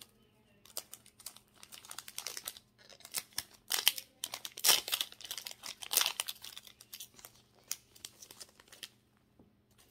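Foil Pokémon card booster pack crinkling and tearing as it is opened by hand: a run of irregular crackles and rips, loudest in the middle, stopping near the end.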